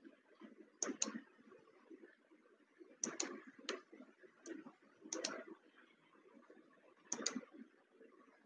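Computer mouse button clicking, mostly in quick pairs: about four double-clicks, with a couple of single clicks between them.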